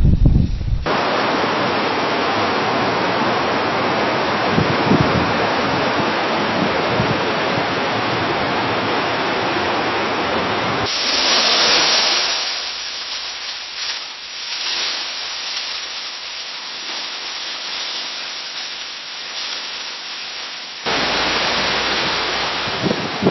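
Wind rustling through tree leaves: a steady rustling hiss. It changes abruptly near the start, about halfway and near the end as one recording gives way to another. The middle stretch is brighter and thinner, with little low sound, and rises and falls in gusts.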